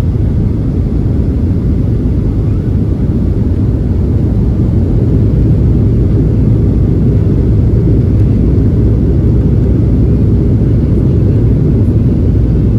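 Steady low rumble of the CFM56 turbofan engines and airflow heard inside the cabin of a Boeing 737-800 on its way down to land, swelling slightly about five seconds in.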